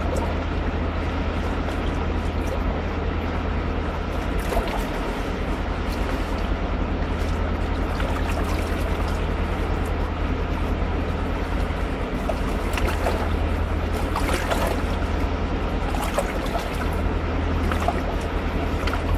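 Steady rush of a fast-flowing river running over stones, with a constant low rumble beneath it.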